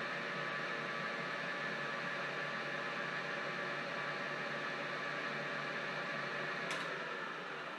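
The three-phase motor of an XLO Ex-Cell-O 602 ram turret knee mill running steadily on power from a static phase converter: a steady mechanical hum with a whine. Near the end there is a single click, and the hum then starts to fade as the machine is switched off and spins down.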